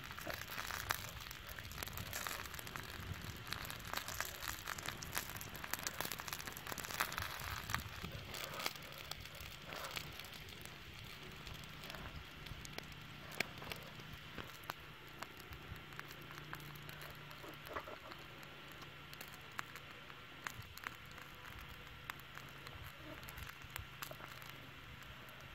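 Chicken wings sizzling on a flat stone slab heated by a wood fire, with the fire crackling and frequent small pops. The popping is busiest for the first several seconds and settles afterwards.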